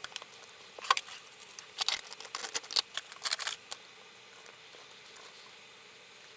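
A quick run of small clicks, taps and scrapes from hands working on small hardware parts, the loudest a sharp click about a second in, then stops after about four seconds.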